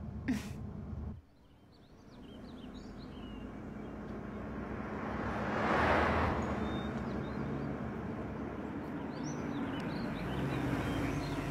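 A low car-cabin hum cuts off about a second in. Then a car drives up, its engine and tyre noise swelling to a peak about halfway through and settling into a steady low engine hum, while birds chirp faintly.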